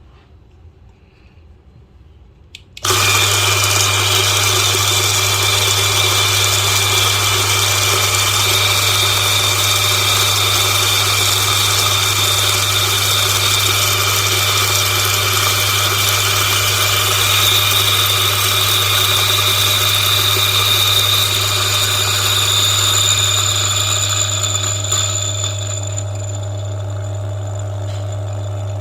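DF64 electric coffee grinder with SSP Multipurpose burrs switched on about three seconds in, grinding a 20-gram dose of coffee beans, with a little popcorning as beans bounce on the burrs. Near the end the grinding noise drops as the burrs run empty, and the motor runs on with a steady hum.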